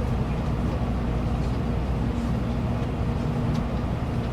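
Steady low rumble and hum inside a Shinkansen car, with a few faint ticks near the end.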